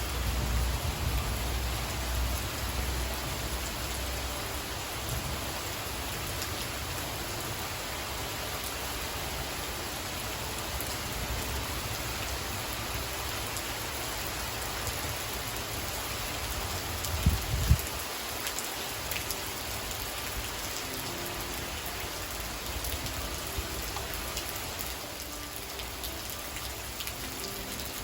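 Steady rain, with a low rumble dying away over the first few seconds and a brief thump about seventeen seconds in.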